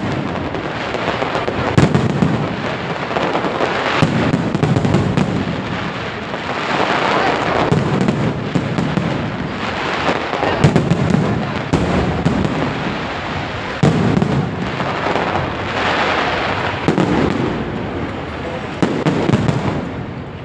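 Fireworks bursting in a steady barrage, a sudden bang every two to three seconds, each trailing off into a noisy crackle.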